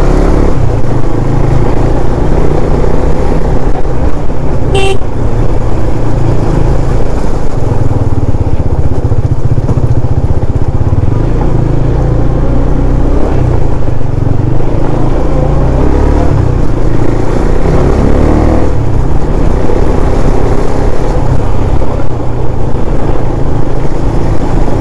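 KTM Duke 390's single-cylinder engine running on the move under heavy wind rumble on the microphone, with a short horn beep about five seconds in.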